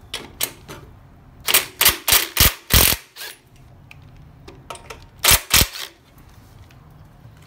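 Snap-on cordless impact wrench hammering in short bursts, loosening the 1/2-inch bolts that hold a Harley-Davidson slip-on muffler to its mount. There is a quick cluster of about five bursts in the first half, then two more about five seconds in.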